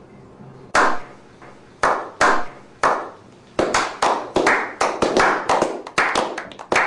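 A small group of people clapping hands in a slow clap: single claps about a second apart at first, quickening from about halfway into faster, overlapping applause from several pairs of hands.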